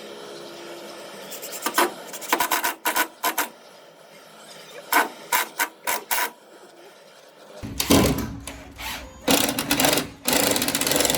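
Wood being shaped with a tool: a run of short rasping strokes, then longer, louder scraping over the last few seconds.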